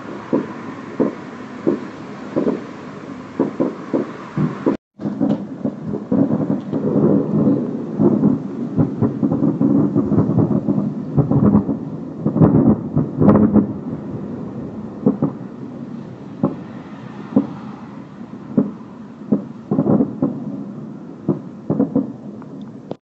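Series of dull booms and thuds at irregular intervals, at times several a second, over a low rumble; the booms sound almost like distant fireworks. The sound cuts out briefly about five seconds in, then the booming goes on.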